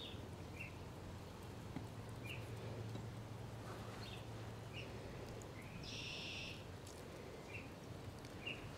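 Quiet backyard ambience with birds chirping now and then: short high chirps scattered throughout and one longer, buzzier call about six seconds in, over a low steady hum.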